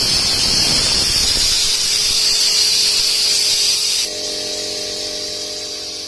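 A loud, steady spraying hiss that cuts off about four seconds in, leaving a few sustained music tones that fade away.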